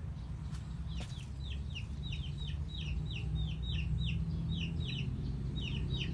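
Chicks peeping: quick high chirps that fall in pitch, a few each second, with a steady low rumble underneath.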